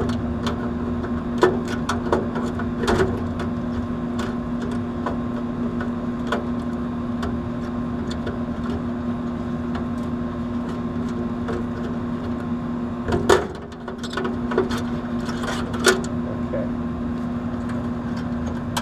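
Steady mechanical hum from a neighbouring air-conditioning condenser unit running, with scattered sharp clicks and knocks about 1.5, 2, 3, 13 and 16 seconds in as the wire terminals are pulled off a capacitor with pliers.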